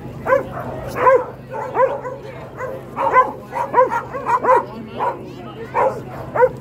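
Kelpies barking and yelping in short, high, excited calls, two or three a second and at times overlapping, from more than one dog.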